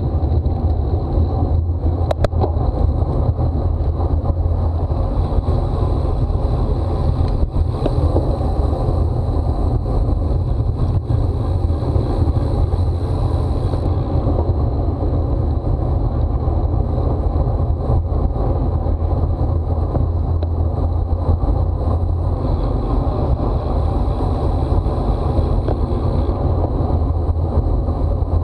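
Wind rushing over the microphone of a bicycle-mounted camera while riding, a steady low rumble, with a couple of sharp clicks about two seconds in.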